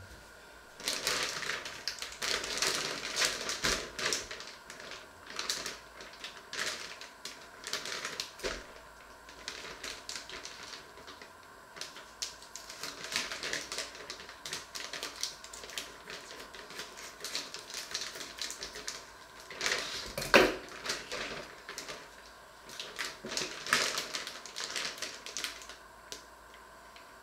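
Plastic bag of frozen vegetables crinkling and crackling in irregular bursts as it is handled and cut open with scissors. A single sharp knock comes about two-thirds of the way through.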